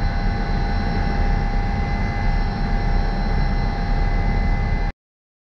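Twin-engine Airbus H145 helicopter in flight, heard from inside the cockpit: a steady heavy rumble with a high whine over it. It cuts off suddenly near the end.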